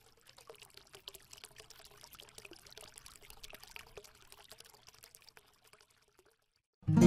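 Faint intro sound effect of many small rapid ticks and crackles, stopping about six seconds in. Just before the end, loud strummed guitar music starts.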